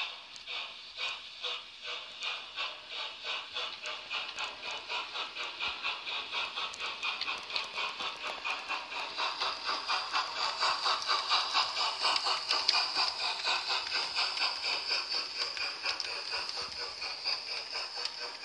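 Sound decoder of a model Midland Compound 4-4-0 steam locomotive playing steam exhaust chuffs through its on-board speakers, the beats quickening from about two to about four a second as it gathers speed. A steady steam hiss joins about halfway, and the sound is loudest as the locomotive passes close, easing slightly near the end.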